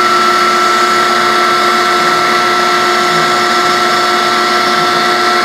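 Maxicam 1325 CNC router running, a steady high whine from the spindle over a loud even hiss of machine noise.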